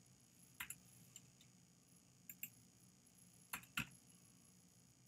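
Sparse, faint clicks from a computer keyboard and mouse in a quiet room, mostly in pairs, the loudest pair about three and a half seconds in.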